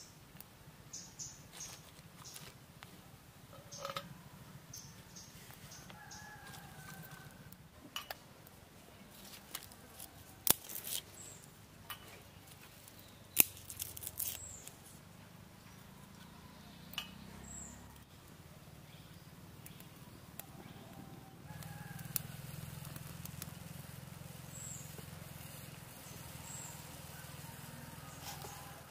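Dry twigs snapped by hand and fed into a small portable wood-burning camping stove: scattered sharp cracks and rustles, two of them loud about ten and thirteen seconds in, with birds chirping now and then.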